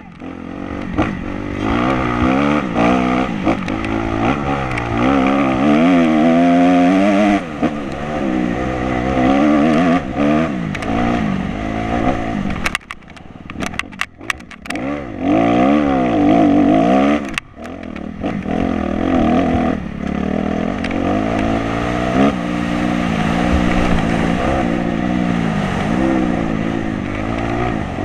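Dirt bike engine ridden hard, its pitch climbing and falling again and again with throttle and gear changes. About thirteen seconds in it eases off briefly amid a few sharp knocks, then pulls hard again.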